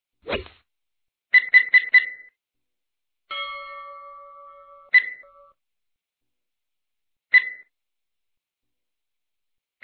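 Synthetic quiz-animation sound effects: a brief low whoosh, a quick run of four sharp ticks, a ringing chime, then single stopwatch ticks about every two and a half seconds as a countdown timer runs.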